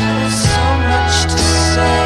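Recorded rock music: sustained chords over a bass line that changes note about half a second in, with drum hits.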